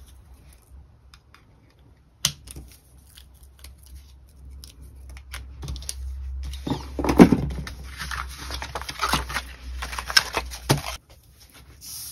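Paper and craft materials being handled on a tabletop: rustling and scraping with scattered small clicks, a sharp knock about two seconds in, and a busier stretch of rustling and louder knocks in the second half.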